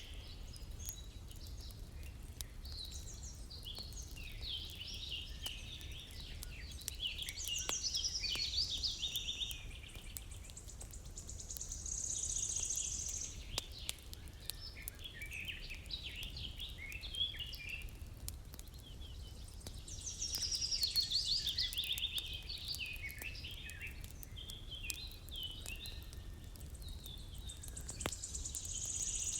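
A chorus of songbirds chirping and trilling, swelling louder several times, over a steady low rumble, with scattered soft crackles of a wood fire.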